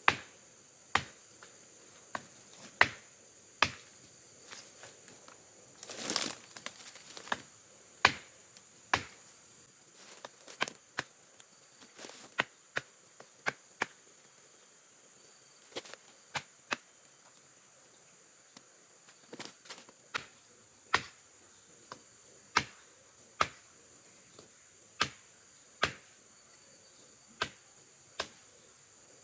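A blade knocking repeatedly into the bark of a terap tree, cutting it to draw the sticky latex used for bird lime. The sharp, single knocks come at an uneven pace of about one a second, with a brief rustle about six seconds in, over a steady high insect hum.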